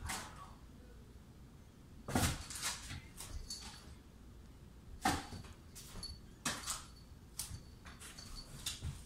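A cat playing with a wand toy: irregular rustles, light thumps and scuffs from the toy's streamer and the cat's leaps and landings, the loudest about two and five seconds in.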